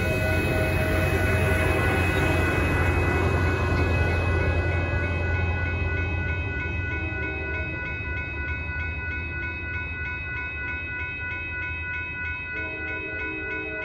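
Railroad crossing bell ringing steadily while a commuter train rolls past and pulls away. The heavy rumble of the Siemens SC-44 diesel locomotive at the rear of the train goes by in the first half and then fades.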